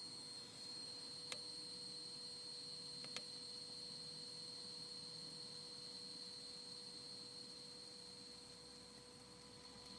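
Car radio speakers giving off a steady electrical whine and hum: a high tone with weaker lower tones over faint hiss, noise that the radio should not make. Two faint clicks come about one and three seconds in.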